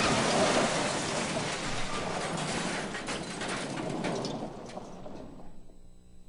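Crash of a semi-trailer truck slamming into a pickup truck: a loud noisy smash with rattling, scattering debris, tapering off over about five seconds.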